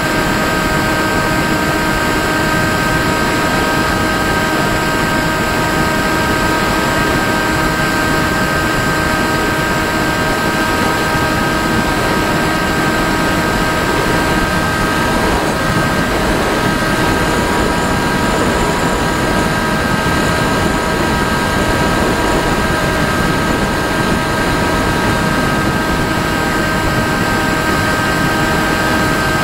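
An RC model aircraft in flight, heard through its onboard camera: the motor and propeller whine at a steady pitch, held at an even throttle, over the rush of wind across the airframe.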